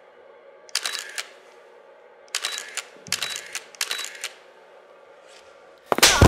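Camera shutter released four times, each a quick double click, spaced about a second apart. Near the end comes a much louder crash.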